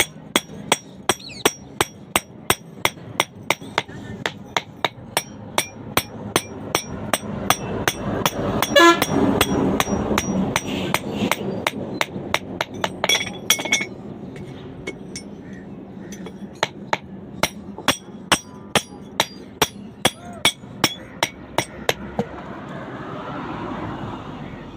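Blacksmith's hammer striking metal on an anvil at a steady pace of about two to three blows a second, each blow ringing. A louder rushing noise swells under the blows about a third of the way in. The hammering breaks off for a couple of seconds past the middle, resumes, and stops a few seconds before the end.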